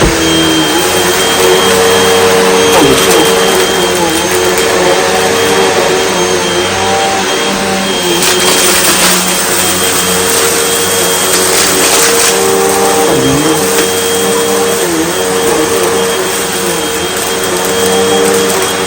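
Hoover Elite Rewind UH71013 bagless upright vacuum cleaner running at full power, a steady motor drone with a high whine that dips briefly in pitch a few times. There is a stretch of louder hiss about eight to twelve seconds in.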